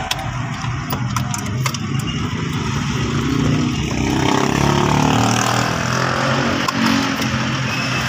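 A motor vehicle's engine running close by, growing louder and shifting in pitch from about three seconds in as it revs. There are a few sharp clicks in the first couple of seconds as the wiring and trim are handled.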